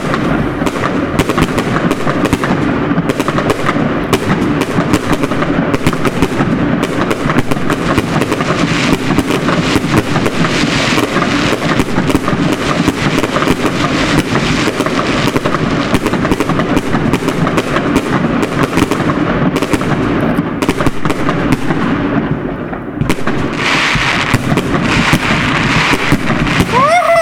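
Aerial fireworks going off in a dense, rapid run of bangs and crackles, with a short lull about three-quarters of the way through. Right at the end, whistling fireworks sound, falling in pitch.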